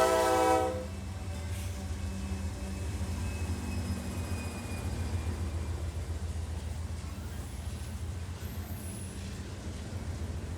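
A train's horn chord cuts off under a second in, leaving the steady low rumble of a passing train.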